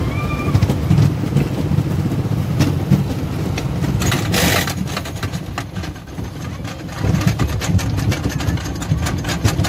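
Wooden roller coaster train rumbling and clattering over its wooden track as it leaves the station, with a brief hiss about four seconds in. From about seven seconds in, a rapid, even clicking sets in as the train climbs the lift hill, typical of the lift's anti-rollback ratchet.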